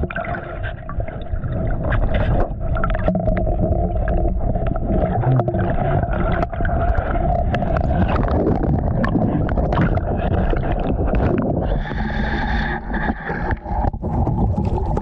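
Wind buffeting the microphone in a heavy low rumble, with water sloshing and splashing around a paddle board.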